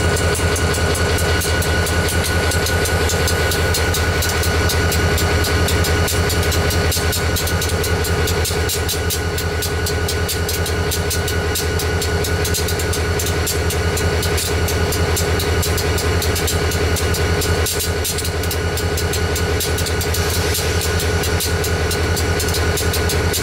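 EMD GP40-2 locomotive's turbocharged 16-645 V16 diesel idling up close, a steady low engine note with a steady high whine over it.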